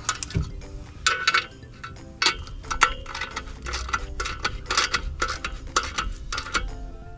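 Ratchet wrench clicking in short irregular bursts, with metal clinks of the socket, as the clutch pressure plate bolts are run in against the flywheel.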